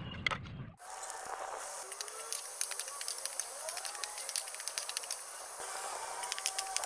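Chopped onions and tomatoes frying in hot oil in a steel wok, a loud sizzle that starts suddenly less than a second in and runs on with many sharp crackles, as a steel spatula stirs them against the pan.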